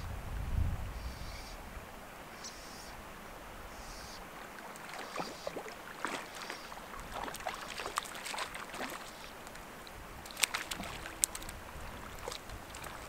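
Hooked trout splashing and thrashing at the lake surface as it is played on a fly rod: a string of short, sharp splashes that grows busier in the second half, with the two sharpest near the end. A low rumble of wind on the microphone in the first second or so.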